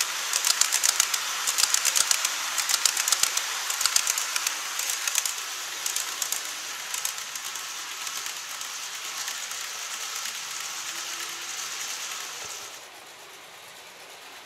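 Model train of 14 series passenger coaches running over the track, a rapid clatter of wheels clicking across rail joints that thins and fades as the train moves away. It drops suddenly to a quiet background near the end.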